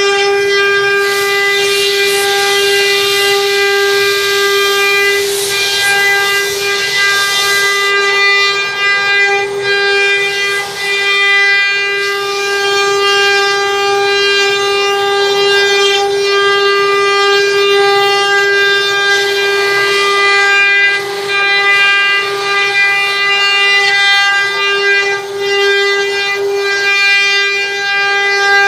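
Multi-head CNC wood router carving wooden panels: its row of spindles runs together with a steady high whine. A rushing hiss of the bits cutting the wood comes up during the first several seconds and again about twenty seconds in.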